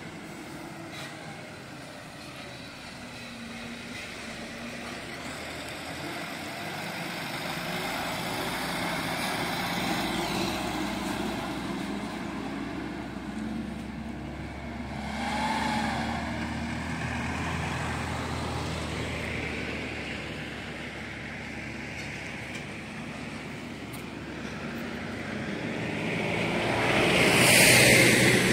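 Truck engines running slowly, rising and falling in level, with a louder rush near the end as a vehicle draws close.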